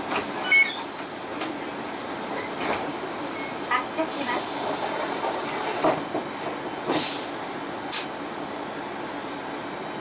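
Interior of a stopped Mitsubishi Fuso Aero Midi MK city bus: the diesel engine is idling under a steady noise. About four seconds in comes a hiss of compressed air lasting about two seconds, and a few sharp clicks and knocks are scattered through.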